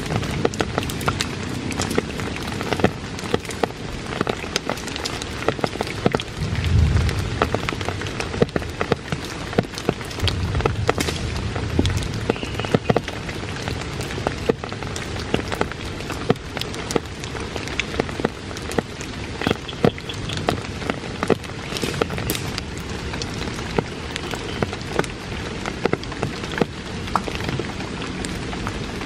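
Steady rain falling through the forest, with many close, sharp drips, and a few low rumbles near 7 and 11 seconds in.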